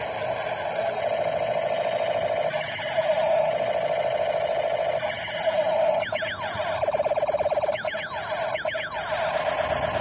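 Electronic toy Steyr AUG rifle playing its sound effects: a warbling siren-like tone, then from about six seconds in a run of falling laser-like sweeps and rapid pulses.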